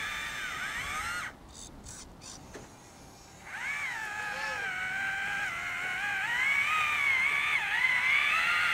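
Brushed electric drive of a radio-controlled Bruder CAT tracked loader whining, the pitch wavering up and down as the motor's load changes. The whine breaks off for about two seconds after the first second, then resumes and grows a little louder toward the end.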